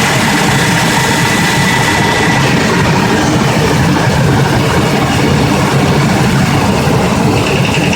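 GM 8.1L big-block V8 engine running steadily at idle. This is an engine with a piece broken out of a piston from running too lean. A pulsing higher sound comes in near the end.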